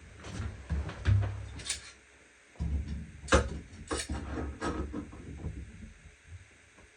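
Knocks, clicks and clunks of hand work at a shower valve being fitted into place, in two clusters with a short pause between, fading out toward the end.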